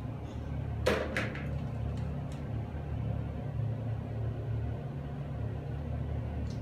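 A steady low hum, with a few light clicks about a second in as plastic toy animals knock against each other and a plastic basket.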